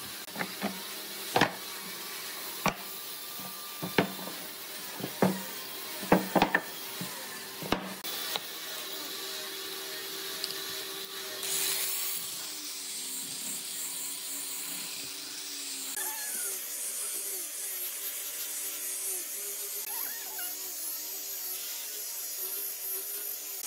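Wooden blocks knocked and set down on a workbench, a dozen or so sharp knocks in the first eight seconds. From about twelve seconds in, a small angle grinder with a sanding disc runs steadily, sanding the face of a hardwood board, its hum wavering as it is pressed and moved.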